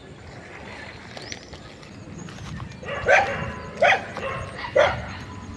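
A dog barking three times, a bit under a second apart, starting about three seconds in.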